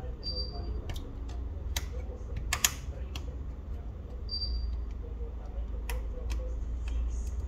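Scattered small clicks and taps of hand tools on smartphone parts during a screen-replacement teardown, about half a dozen, the loudest a quick double click near the middle. Two short high-pitched chirps come near the start and again about two-thirds through, over a steady low hum.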